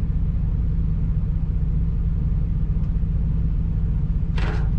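Steady low rumble of a semi truck's diesel engine idling, heard from inside the sleeper cab. A brief handling noise comes near the end.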